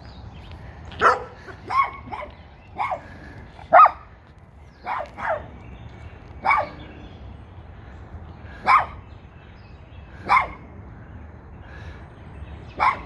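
A dog barking: about a dozen single sharp barks, spaced unevenly with pauses of up to two seconds between them.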